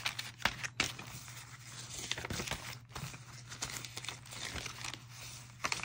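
Paper pages of a handmade art journal being turned and handled, rustling and crinkling, with a couple of sharper paper snaps about half a second and a second in.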